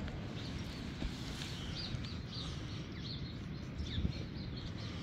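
Small birds chirping repeatedly in short high notes over a steady low rumble, with a couple of faint knocks.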